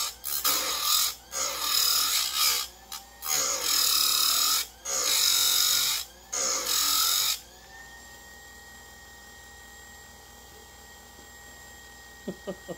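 Electric bench-mounted saw-chain grinder biting into the cutters of a new chainsaw chain, one tooth after another: a series of short grinding strokes, each under about a second, with brief pauses between. About seven seconds in the grinding stops, leaving the steady hum of the motor with the wheel spinning free, and a few light clicks near the end.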